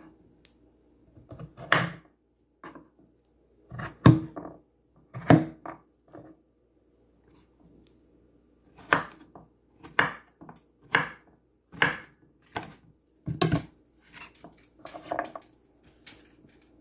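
Kitchen knife cutting squash on a wooden cutting board: a series of sharp knocks of the blade against the board, irregular at first, then about one cut a second.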